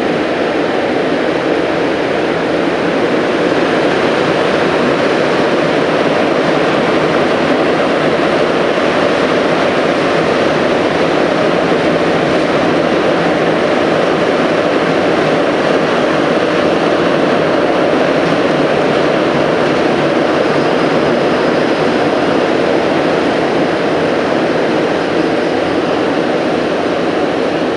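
Montreal metro MR-73 rubber-tyred train running through the tunnel, heard from inside the car: a loud, steady running noise of tyres and motors.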